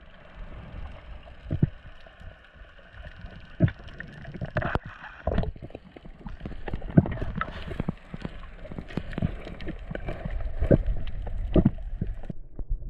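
Muffled underwater sound picked up through a camera housing: a low water rush and hiss with many scattered sharp clicks and knocks. The hiss stops shortly before the end.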